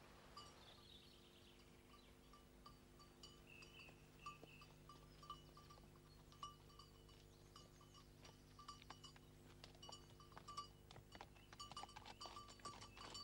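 Faint, irregular tinkling of small bells with light metallic clinks, busier near the end, over a steady low hum.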